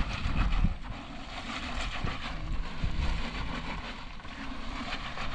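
Wind gusting on the microphone in irregular low rumbling buffets, strongest in the first second, over a steady rushing background.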